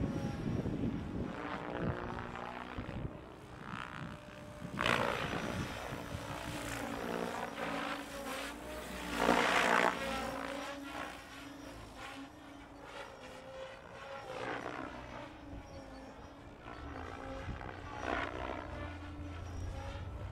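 Electric RC helicopter flying with its rotor governed at 1800 rpm: a steady motor and gear whine under the whoosh of the rotor blades, which swells in loud surges about five, nine and eighteen seconds in, the loudest near nine seconds.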